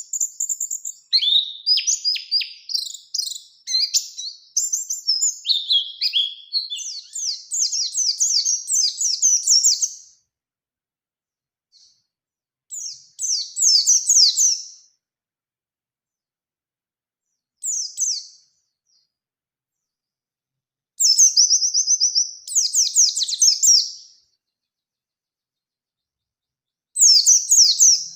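White-eye (pleci) singing: a long, varied, high twittering song for about the first ten seconds, then short bursts of rapid high trills, each a second or three long, separated by silent pauses.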